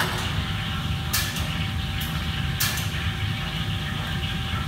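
Commercial kitchen background: a steady low rumble with a faint constant whine, broken by a few short, sharp clinks and clatters of metal utensils and trays, about one and two seconds in and again shortly after.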